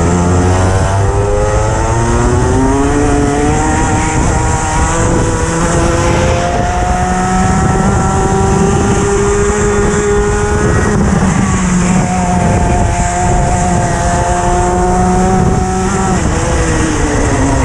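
Racing kart engine at full throttle, heard from on board, its pitch climbing steadily as the kart gathers speed. It drops sharply a little before halfway as the driver lifts for a corner, climbs again, and drops once more near the end.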